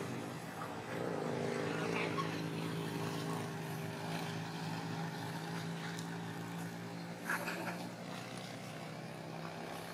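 An engine running steadily, a low hum that is loudest a second or two in and then holds, with a few short clicks about seven seconds in.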